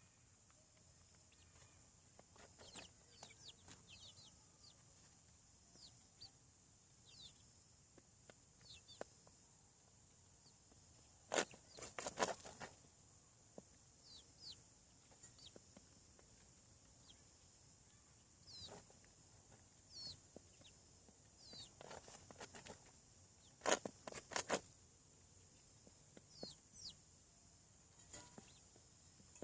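Young chickens peeping and clucking: many short, high, falling peeps scattered throughout, with a few sharp knocks in two clusters, around midway and near the end.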